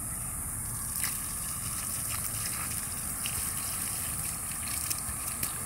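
Garden hose running, water gushing out of its open end and splashing onto grass, with a few sharp ticks near the end.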